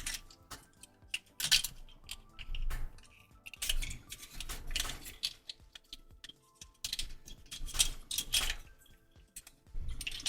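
Plastic action-figure parts being handled and moved, giving irregular clusters of small clicks and rattles as pieces are shifted and pressed together, with faint background music.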